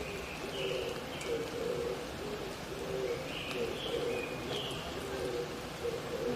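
Oriental turtle doves (mountain pigeons) cooing in repeated low phrases, with another bird's short, high calls coming in two bunches, over a steady hiss of rain.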